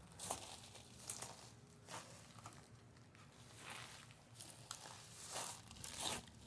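Footsteps crunching on a rough, gritty surface, a step every second or so at an uneven pace, over a faint low steady hum.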